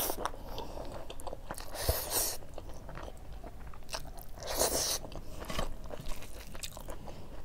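Close-miked chewing of a handful of rice and greens eaten by hand, with small wet mouth clicks and a couple of brief crisp crunches, about two seconds in and again near five seconds.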